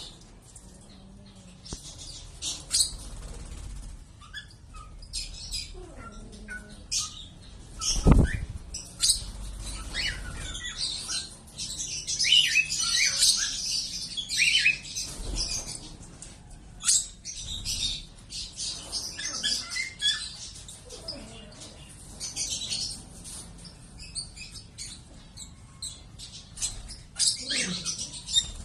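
Lovebirds calling with many short, high chirps, thickest around the middle, and a loud thump about eight seconds in.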